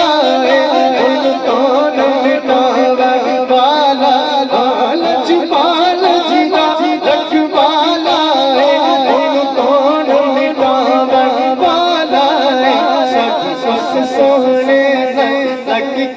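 Solo male voice singing a long, wordless melismatic passage of a naat, the pitch winding up and down over a steady low drone.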